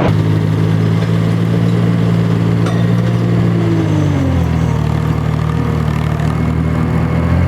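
Aircraft engines droning in a low, steady stack of tones that drop in pitch about four seconds in, as the aircraft passes.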